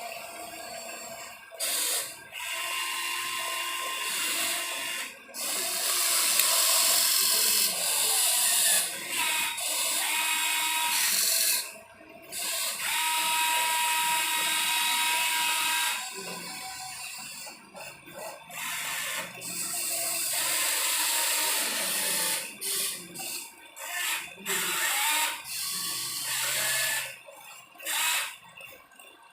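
Small electric motors and gearboxes of radio-controlled construction models whirring with a thin whine. They run in stretches of a few seconds, stopping and starting again many times.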